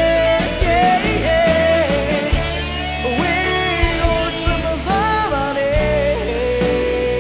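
A man singing a Burmese-language pop-rock song over a band backing of guitar, bass and drums.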